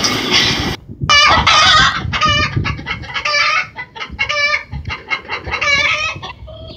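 A dog making its 'chicken sound': a run of short, warbling, clucking vocal calls in quick clusters. A loud rushing noise cuts off suddenly just under a second in.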